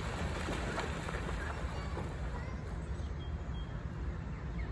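Canada geese splashing and flapping their wings in pond water as they bathe. The splashing dies down after about two seconds, over a steady low rumble.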